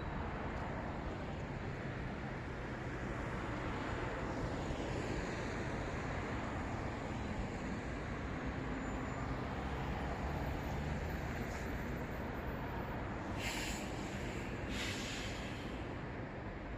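Road traffic noise: a steady rush of passing cars and their engines, with two short, sharp hisses near the end.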